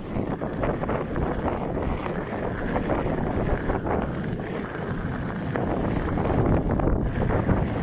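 Wind buffeting the microphone over the steady rumble of a Onewheel Pint's tyre rolling along a dirt trail, with scattered small knocks from bumps in the ground.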